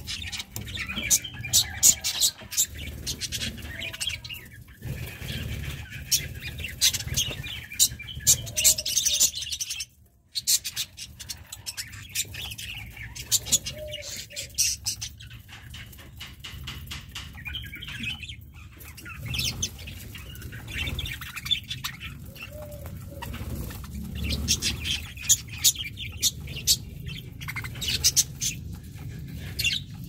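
A flock of budgerigars chattering with quick high chirps while pecking at seed, with wings fluttering now and then. The sound cuts out for a moment about ten seconds in.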